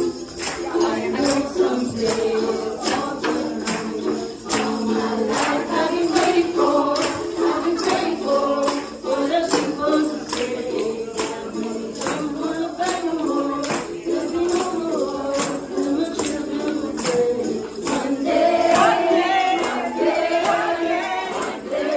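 Music with several voices singing over a steady beat of sharp, jingling percussion like a tambourine.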